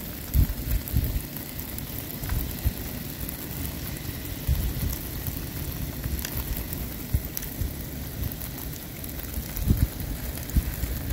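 Rain falling on a river and sandy bank, a steady hiss, with low gusts of wind buffeting the phone's microphone, strongest near the end.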